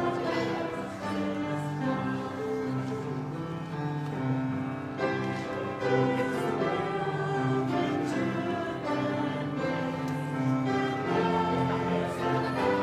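Music playing with a group of young children singing along.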